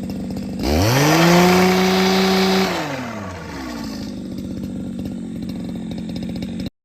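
Small engine idling, revved up hard once about half a second in and held high for about two seconds before dropping back to idle. The sound cuts off abruptly near the end.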